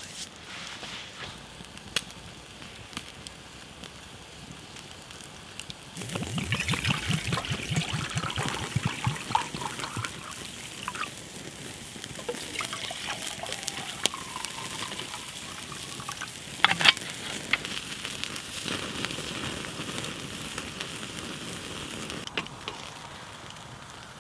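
Water poured from a bottle into metal camping mugs: it starts about six seconds in with a run of glugs as the bottle empties, then settles into a steady splashing pour that stops near the end. One sharp knock comes partway through, with faint crackles of the wood fire before the pour.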